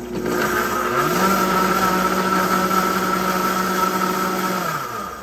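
High-speed countertop blender motor running, blending egg whites with gelatin and salt: its pitch rises about a second in, holds steady, then winds down and stops near the end.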